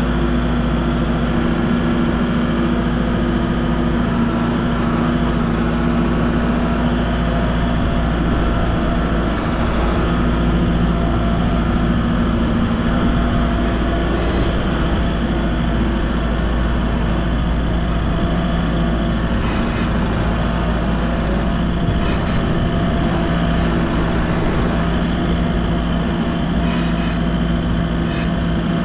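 A vehicle engine running steadily, its pitch shifting slightly a few times.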